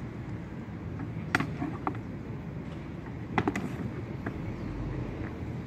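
Practice axes striking each other in sparring: a sharp knock about a second and a half in, a quick double knock past halfway, and a few fainter knocks. A steady low city rumble runs underneath.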